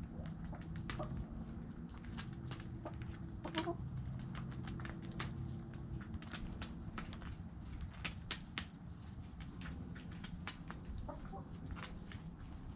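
Backyard chickens: a few short clucks, the loudest about three and a half seconds in, among many sharp clicks and taps, over a steady low hum.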